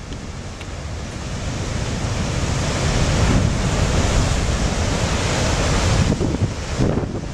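Heavy storm surf breaking and churning on a rocky shore, with strong wind buffeting the microphone. The surf noise builds over the first few seconds and eases off near the end.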